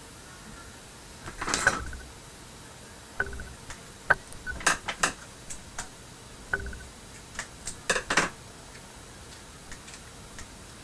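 Light clinks, taps and scrapes of small hard objects being handled on an electronics workbench, some with a brief metallic ring. A scraping rustle about a second and a half in, then a dozen or so irregular taps, loudest around four to five seconds in and again around eight seconds.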